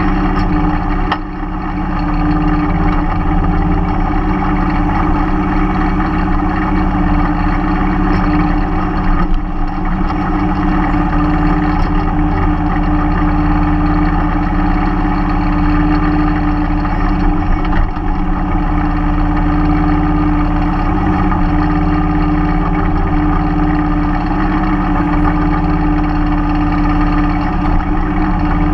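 Mahindra 3016 compact tractor's diesel engine running steadily at working speed, with a brief dip in loudness about a second in and a few faint knocks.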